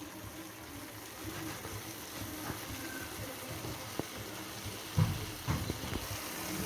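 Chicken in a yogurt and spice marinade sizzling softly in a pan on a high gas flame as it cooks in its own released juices, with a few knocks about four to five seconds in.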